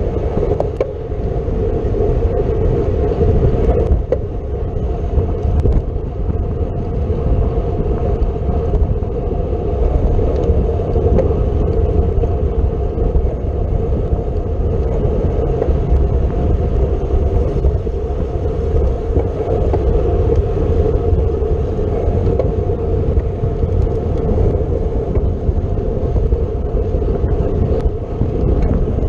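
Steady wind rush and road rumble on the microphone of a camera riding along on a road bike during a race, with no letup.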